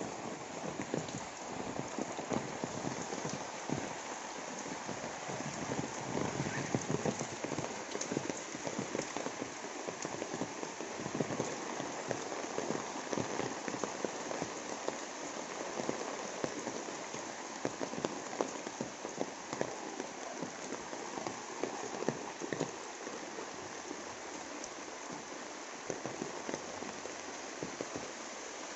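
Steady rain falling on broad-leaved plants and wet ground: a dense patter of drops over a continuous hiss.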